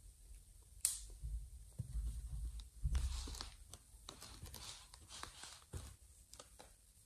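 Quiet room with faint scattered rustles and soft taps from kittens stirring and stretching on fabric cushions, plus a few low thumps about two to three seconds in.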